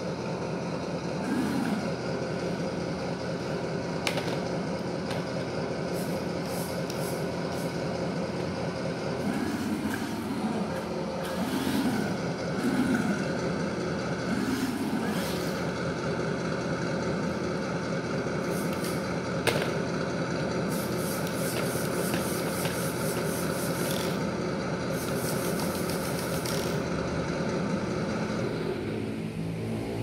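Engine sound module on a 1/16 MN D90 RC crawler, its small speaker playing a simulated truck engine running steadily, with several short revs rising and falling about ten to fifteen seconds in.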